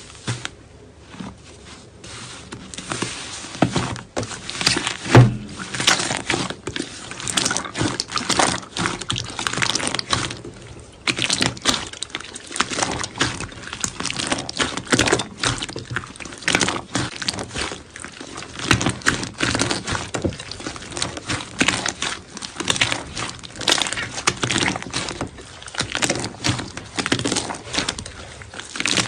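Slime being squished and pressed by hand: a dense, irregular run of sticky clicks, pops and crackles.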